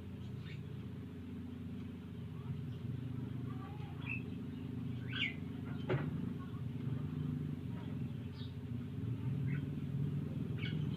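A motor, like a vehicle engine, runs with a steady low hum, while faint short high chirps come and go. There is a sharp click about six seconds in.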